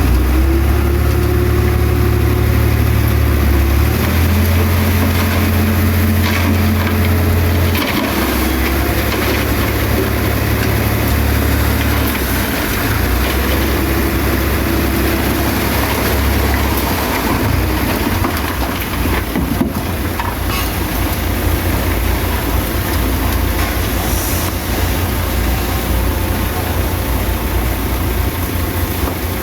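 Heavy diesel engine of earthmoving machinery running, its deep drone stepping up and down in pitch and level every few seconds as the load changes.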